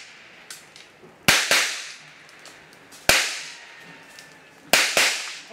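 Five loud, sharp cracks: a quick pair, a single one, then another quick pair. Each rings out and fades over about a second.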